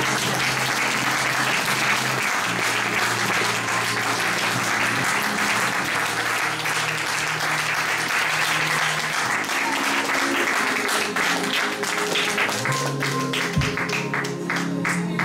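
Audience applauding over a soft band accompaniment with guitar; the dense applause thins toward the end into separate claps.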